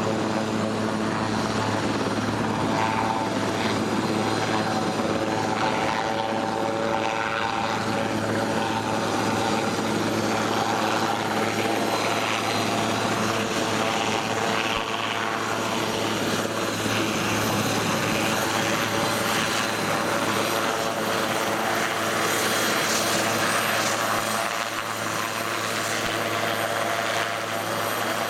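Helicopter hovering and flying slowly with a sign slung beneath it on a long line: a steady drone of rotor and engine.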